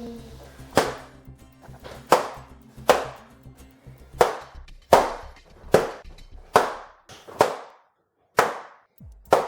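Balloons popping one after another, about ten sharp pops roughly one every second, over background music.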